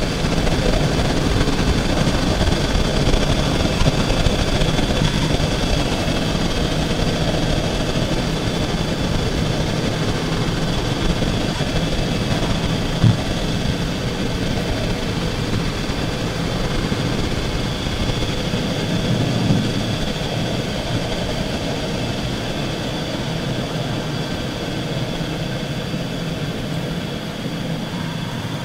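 Mitsubishi Chariot Space Wagon heard at the wheel arch, with a steady hissing, rustling "shara-shara, sha-sha" noise over the car's running sound, which the owner suspects is a dragging brake. A single short knock comes about 13 seconds in.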